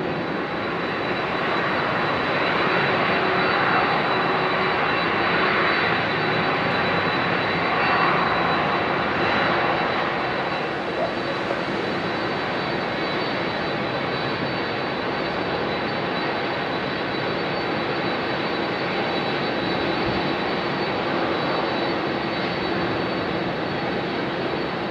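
Boeing 767-300ER jet engines running at low taxi power: a steady jet hum with a thin, high, even whine on top. It swells slightly in the first ten seconds, then holds level.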